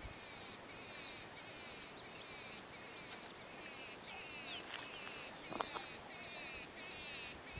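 Faint, high-pitched chirping trills repeating every half second or so, the calls of small animals, with one sharp click about five and a half seconds in.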